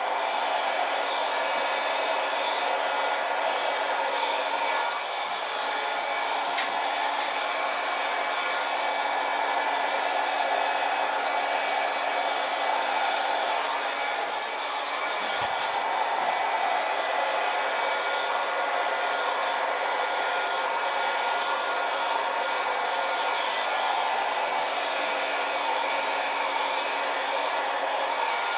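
Hair dryer running steadily on its low setting, its air blowing wet acrylic paint across a canvas, with a steady motor hum under the rush of air.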